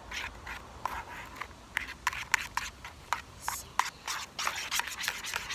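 A knife stirring and scraping through sticky slime mixture in a bowl as borax activator is worked in: a run of irregular sharp scrapes and wet clicks.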